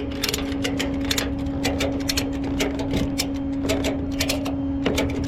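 Ratchet clicking unevenly, as when a tie-down strap is being tightened, over a steady low hum.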